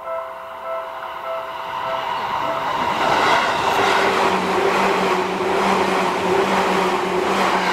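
Japanese level-crossing warning bell dinging in a steady repeated pattern as a Seibu electric commuter train approaches. From about three seconds in the train's running noise, with a steady hum, grows loud and drowns out the bell.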